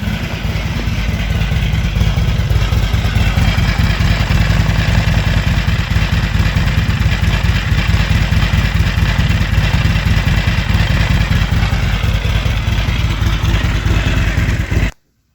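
Harley-Davidson XR1200's air-cooled V-twin idling steadily, with an abnormal noise from the primary drive that the owner suspects comes from a stretched primary chain riding over its tensioner.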